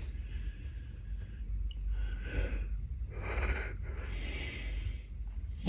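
A person snoring in sleep: slow, raspy breaths, the two loudest about two and three seconds in.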